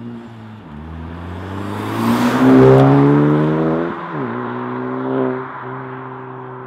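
Honda Civic Type R (FK2) 2.0-litre turbocharged four-cylinder through a Cobra Sport 3-inch resonated stainless steel cat-back exhaust, accelerating hard away. The note climbs through a gear and is loudest about two and a half seconds in. It drops sharply at an upshift about four seconds in, climbs again briefly, then falls back to a steady fading drone as the throttle is lifted.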